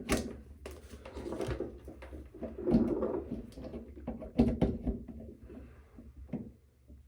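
Irregular clicks, taps and rustling as things are handled close to the microphone, with the sharpest knocks about three and four and a half seconds in.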